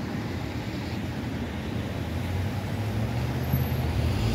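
Street traffic noise with the low rumble of an approaching ZET TMK 2200 low-floor tram running on its rails, growing louder near the end.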